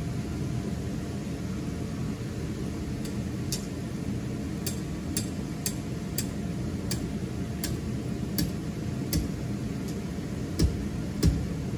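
Steady hum of an inflatable's electric blower fan keeping the waterslide inflated. From about three seconds in there is a series of light, sharp ticks, roughly two a second, and a couple of dull thuds near the end.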